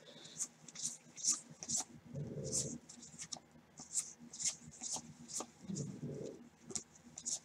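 Cardboard 1989 Score football trading cards slid off a stack one after another by gloved hands, a soft papery swish about twice a second. Two short, soft, low sounds come in about two and six seconds in.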